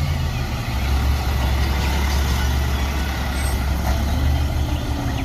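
Garbage truck's diesel engine running with a steady low rumble.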